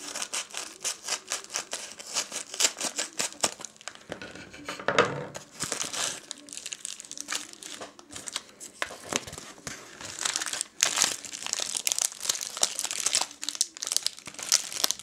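Scissors cutting open a bubble-lined kraft paper mailer, then the dense crinkling and rustling of bubble wrap and a plastic bag being handled and pulled out, with a louder burst about five seconds in.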